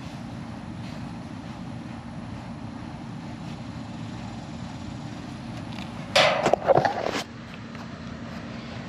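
Steady low mechanical hum, with a short burst of loud knocks and clattering about six seconds in.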